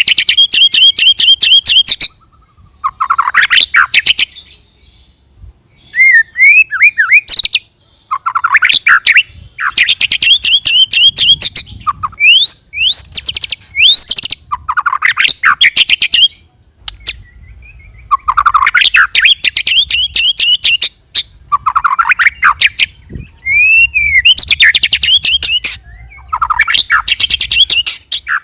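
White-rumped shama (murai batu) singing its rolling 'ngerol' song. Each phrase sweeps up into a fast rattling trill and lasts about two seconds, repeated again and again with short pauses, and quick whistled glides between some phrases.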